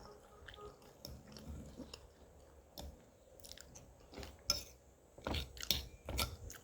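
A person chewing food close to the microphone: soft, wet smacking and clicking mouth sounds, quiet at first and louder over the last two seconds.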